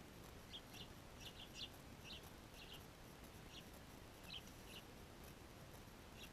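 Small birds chirping faintly: about a dozen short, high chirps, some in quick pairs, scattered through the first five seconds over a low background hiss.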